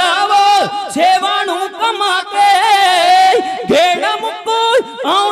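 Kavishri: Punjabi male voices singing unaccompanied in long, ornamented, wavering notes, with one note held and quavering through the middle.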